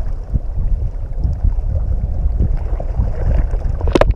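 Wind buffeting the microphone: a loud, deep rumble with no clear pitch that runs steadily, then a single sharp knock just before it cuts off suddenly.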